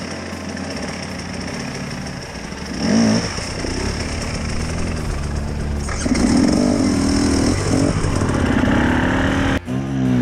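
Enduro dirt bike engines running at low speed on a muddy trail, the throttle blipped up and down several times. The sound breaks off abruptly near the end and picks up again with another engine revving.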